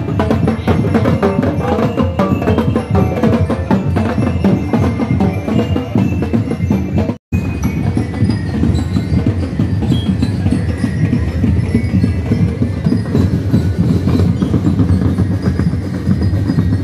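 Street percussion band drumming a fast, steady rhythm on bass drums and snare drums, with a brief dropout about seven seconds in.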